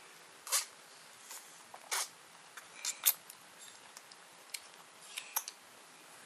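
A handful of short, sharp clicks and taps, about seven, scattered irregularly, the loudest about three seconds in.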